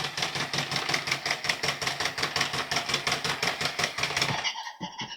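A toy vehicle's engine-like motor noise: a rapid, even rattle of about eight clicks a second over a steady low hum, which stops about four and a half seconds in.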